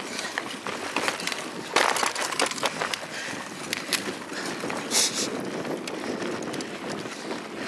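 Mountain bike rolling along a dirt woodland trail, picked up by a camera mounted on the bike: a steady rumble of tyres on dirt with many sharp knocks and rattles from roots, twigs and the bike itself, loudest about two seconds in, and a short hiss about five seconds in.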